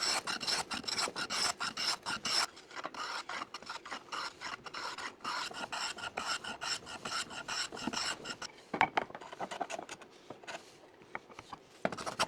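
A hand tool working a piece of wood in quick back-and-forth strokes, likely cutting or shaping the wrist rest down to height. The strokes break off briefly after about nine seconds, then resume.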